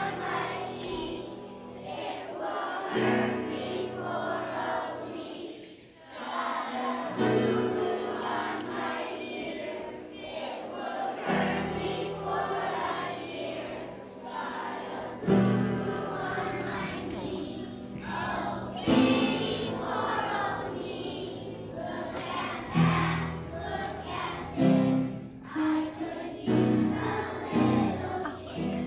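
Kindergarten children's choir singing a song together over instrumental backing music.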